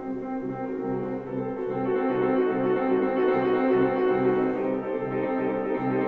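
Grand piano playing a solo prelude: sustained chords over a low note repeated about twice a second, growing louder about two seconds in.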